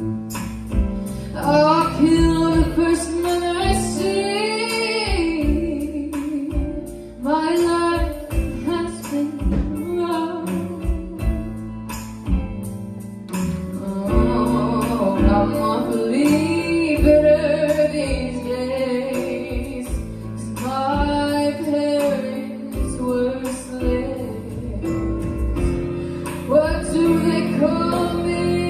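A woman singing into a microphone in long, held phrases that bend in pitch, over steady instrumental accompaniment.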